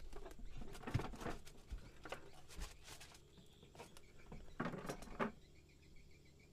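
Irregular knocks, thumps and rustling on a small boat as a freshly landed fish is handled and secured, in three clusters about a second in, around two to three seconds in, and near five seconds in.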